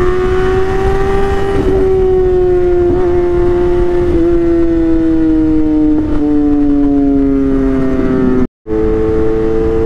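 Superbike engine running at high, steady revs while riding at speed, its pitch sagging slowly as the bike cruises. The sound cuts out for a moment near the end.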